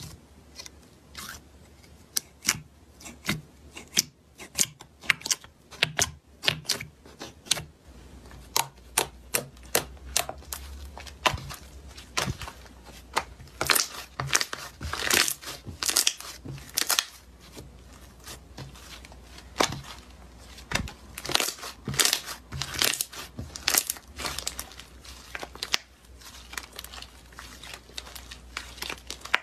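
Slime being squeezed, poked and stretched by hand, giving off many sharp, irregular crackling pops and clicks, some in quick clusters.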